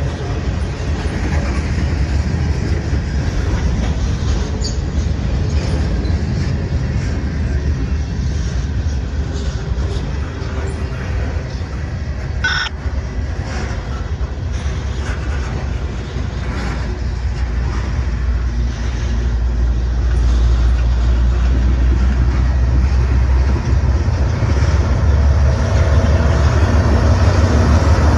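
Freight cars rolling past close by, their wheels rumbling steadily on the rails with light clattering, and one brief sharp metallic sound about halfway. Near the end the rumble grows louder and a steady engine hum joins it as a mid-train GE ET44AH diesel-electric locomotive draws level.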